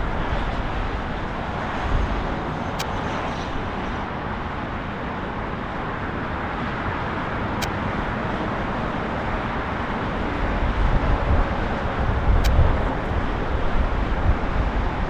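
Boeing 767-300ER jet engines running at low power as the airliner taxis, a steady roar heard from a distance. A low, gusty rumble swells in the last few seconds.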